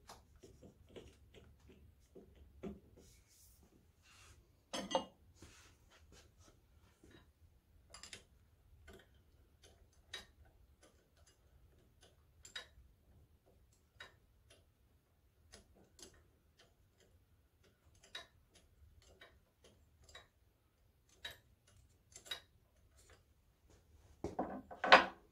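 Sparse metal clicks and taps from hand tools working at the magneto mounting of a cast-iron stationary engine, about one every second or two, with a louder knock about five seconds in and a short clatter of louder knocks near the end.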